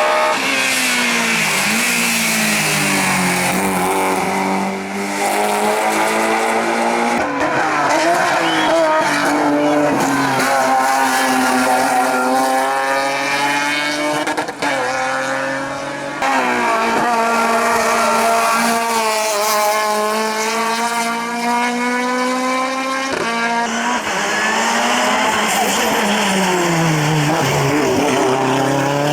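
Hillclimb racing cars driven hard, engines revving up through the gears and falling away on lifts and braking, with some tyre squeal. The sound cuts abruptly from one car to another a few times.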